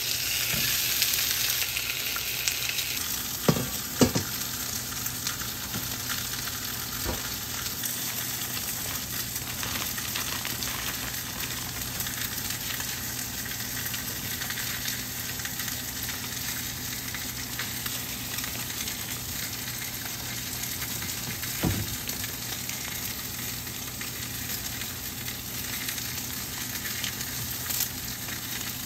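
Food sizzling in a frying pan, a steady crackling hiss over a low hum. A few knocks of a utensil or the pan come a few seconds in and again past the middle.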